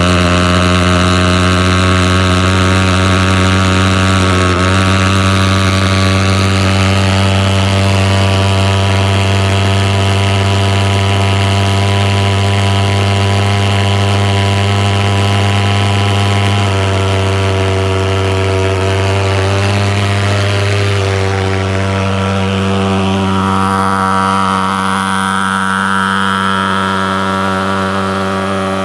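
Pulse-jet thermal fogging machine running with a steady, loud buzzing drone. Its pitch shifts slightly about two-thirds of the way through, and a hiss builds near the end as the machine is pouring out insecticide fog.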